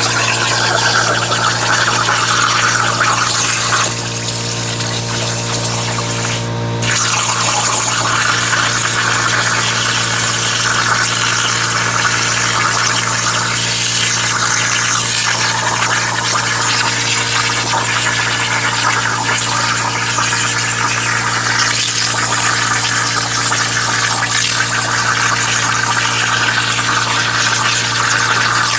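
Hypertherm Powermax45 XP plasma cutter cutting steel on a CNC table: a loud, steady hiss of the plasma arc and air over a low hum. The sound eases for about three seconds a few seconds in, breaks briefly, then carries on steadily.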